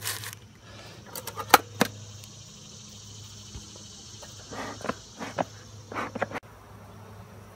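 A bee smoker being worked: a few short puffs of its bellows and a sharp metal clank or two as its lid is snapped shut, over a steady background hum of insects.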